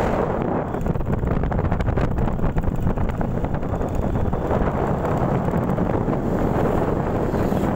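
Wind buffeting the microphone over a steady low rumble, typical of filming from a moving open vehicle.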